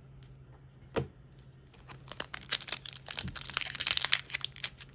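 A single knock about a second in, then, from about two seconds on, crinkling and tearing of a foil Pokémon booster pack wrapper being handled and ripped open.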